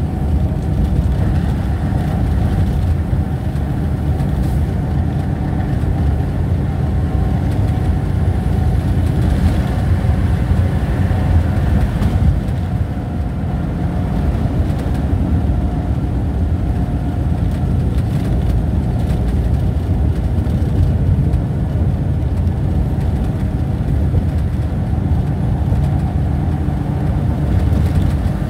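Steady low drone of engine and road noise inside a vehicle's cab, cruising at highway speed.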